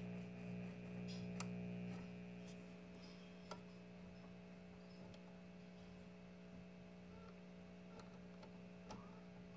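A 1951 Silvertone tube clock radio putting out a faint, steady mains hum through its speaker as the tuning knob is turned across the dial, with no station coming in. The hum eases a little about two seconds in. A couple of small clicks come from handling the knob. The set is receiving nothing, almost as if it had no antenna.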